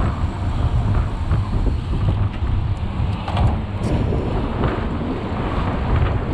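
Wind buffeting the microphone of a camera moving with a pack of mountain bikes on asphalt: a constant, gusting low rumble, with a few faint ticks around the middle.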